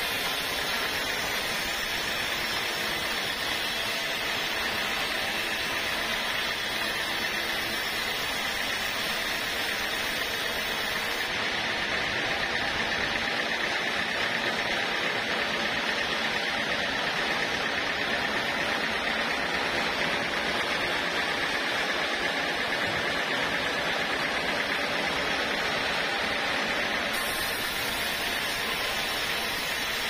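Sawmill band saw running and cutting lengthwise through a teak slab: a steady, even sawing noise with no breaks.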